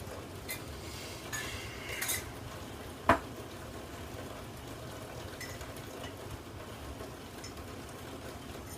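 Kitchen utensils and containers being handled: a few light clinks and scrapes, then one sharp knock about three seconds in, and a few faint ticks, over a steady background hiss.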